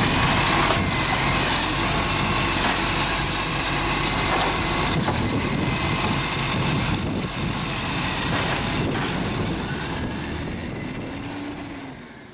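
Side-loader garbage truck's diesel engine running steadily, with a thin high whine above it that rises in pitch near the end as the sound fades out.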